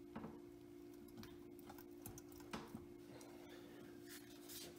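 Faint, scattered clicks and light knocks of the 1926 Ford Model T's rear axle housing half being lifted off the differential, over a steady low hum.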